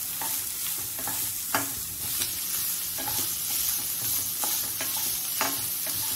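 Chopped green peas, carrot, capsicum and onion sizzling in ghee in a frying pan, with a wooden spatula scraping and knocking against the pan as it stirs them, a stroke every second or so.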